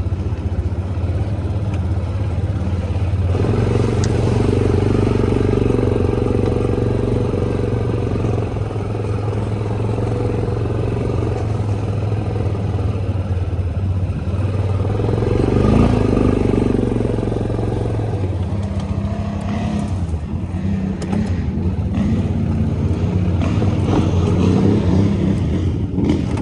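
ATV engine running under way on a dirt trail. Its note steps up about three seconds in and rises and falls again in the middle as the throttle changes.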